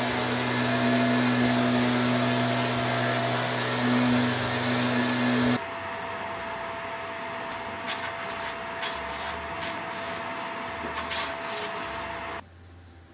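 Vacuum cleaner running steadily, drawing air through an MDF vacuum clamp. For the first five and a half seconds a random orbital sander runs on a thin panel held by the clamp, loud and humming. After an abrupt change the vacuum runs on more quietly under a hand plane's strokes across a thin board, and the sound drops away sharply near the end.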